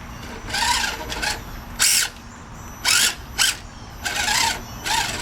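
Electric motor and gearbox of a Losi Mini Rock Crawler RC truck whining in repeated short bursts, about six in a few seconds, as the throttle is blipped on and off.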